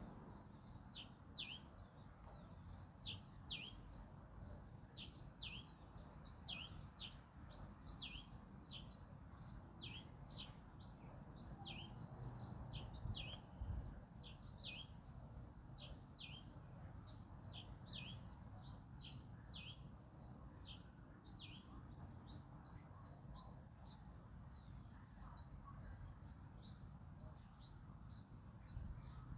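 A songbird chirping: a long run of short, high notes that slide downward, about two or three a second, over a faint low rumble of wind.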